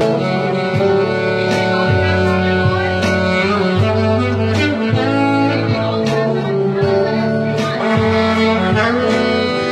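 Live band music: an electric guitar played over bass and drums keeping a steady beat, with a saxophone holding notes.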